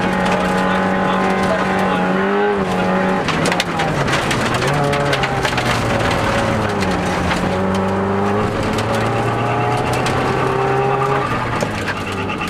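Subaru Impreza WRX STI rally car's turbocharged flat-four engine heard from inside the cabin, running hard with its pitch stepping up and down several times through gear changes and throttle. Gravel crackles and ticks under the car through the middle of the stretch.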